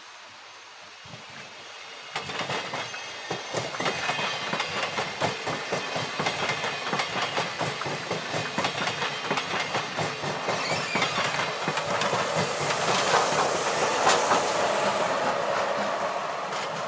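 ÖBB CityShuttle push-pull passenger train passing close at speed: a dense clatter of wheels over rail joints that starts suddenly about two seconds in and keeps on, loudest near the end as the diesel locomotive pushing at the rear, an ÖBB class 2016, comes by.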